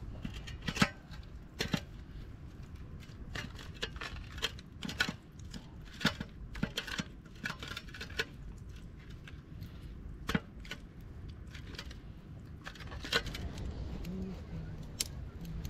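Irregular light clicks and clinks of small hard objects being handled, with a few sharper knocks, the loudest about a second in, around six seconds in and near thirteen seconds.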